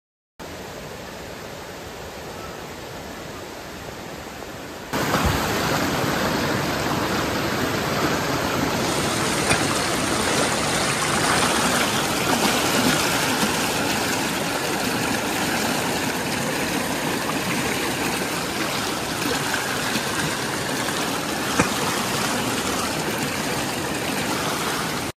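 Shallow stream water pouring over a smooth rock ledge close to the microphone: a steady rush of running water. It is quieter for the first few seconds and turns suddenly louder about five seconds in.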